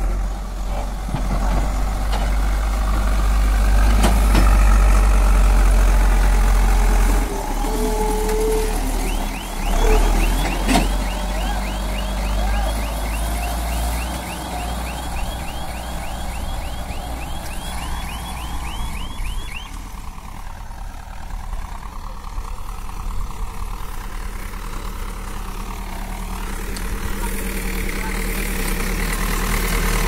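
Cat 424B backhoe loader's diesel engine running hard as the loader works, easing off about seven seconds in. From about nine seconds in, a rapid series of high chirps, about three a second, goes on for some ten seconds over the engine.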